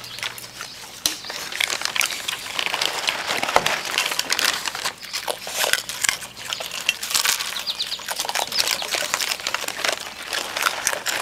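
Several raccoons eating close by, crunching dry kibble and Froot Loops cereal in a dense run of small crunches and clicks.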